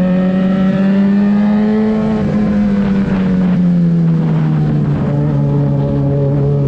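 Yamaha XJ6's 600 cc inline-four running through a LeoVince exhaust with the dB-killer baffle removed, a steady open engine note at mid revs. The pitch eases down a little about halfway through, then holds and rises slightly near the end.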